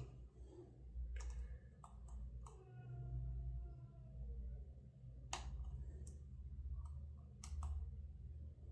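Lock picks clicking inside a solid-brass American Lock Series 20 padlock, with seven or so separate sharp clicks as its pin tumblers are picked and set one at a time. For about two seconds near the middle a squeaky stool creaks with a drawn-out squeak, over a steady low hum.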